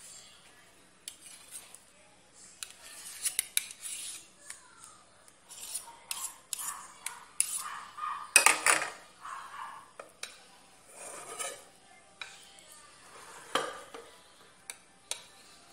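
Metal spoon scraping and clinking against a glass baking dish as thick mashed potato is pushed and spread across it: irregular scrapes and taps, loudest about eight seconds in.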